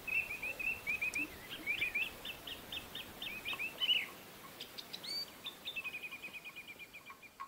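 Songbirds singing: strings of short, quick chirping notes, and from about halfway a fast run of evenly repeated notes.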